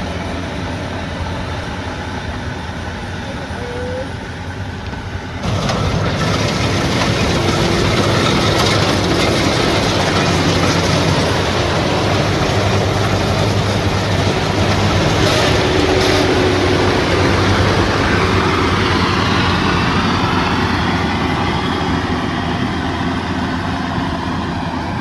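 Combine harvester running steadily, engine and threshing machinery together, turning suddenly louder and brighter about five seconds in.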